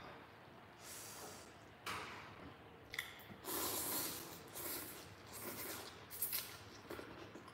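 Slurping of noodles from a bowl of noodle soup, in a string of short sucks, the longest about three and a half seconds in, with a quick run of shorter slurps after it.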